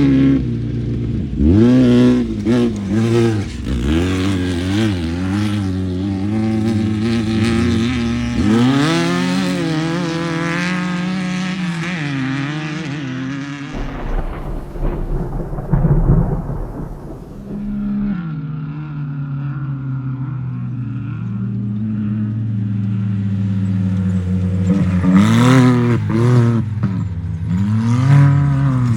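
Off-road desert race vehicles' engines revving up and down as they come through one after another, the pitch rising and falling with throttle and gear changes. Around the middle a deep rumble briefly takes over, and another engine builds in the second half.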